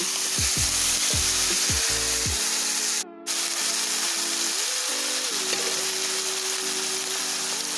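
Pieces of boiled raw jackfruit sizzling in hot mustard oil in a karahi, a steady frying hiss, under background music. The sound cuts out briefly about three seconds in.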